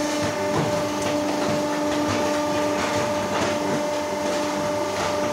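Concrete block making machine running: a steady motor hum with irregular rattling and knocks from its steel frame and mould.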